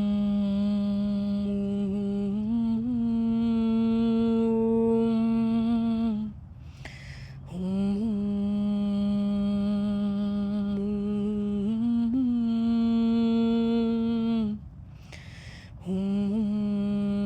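A woman's voice humming long, steady held notes, each six to seven seconds, rising a little in pitch partway through. Twice the tone breaks for an audible in-breath.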